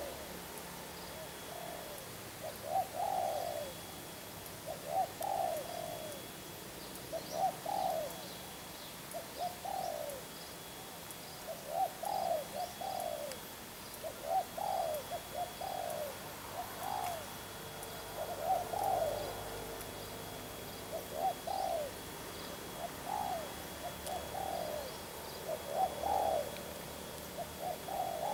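Spotted dove cooing over and over: a short phrase of two or three notes repeated about every two seconds.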